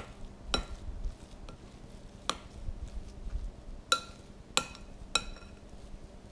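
A spoon stirring mashed potatoes in a glass mixing bowl, clinking sharply against the glass about five times, each clink leaving a short ring, with soft stirring in between.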